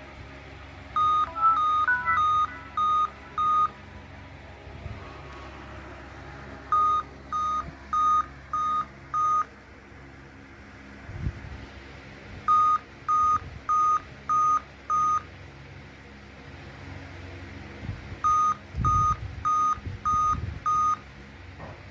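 Laptop beeping in repeated groups of five short, even beeps of one pitch, a new group about every six seconds. The uploader blames this continuous beeping on a failing BIOS (CMOS) battery. A dull thump or two falls between groups.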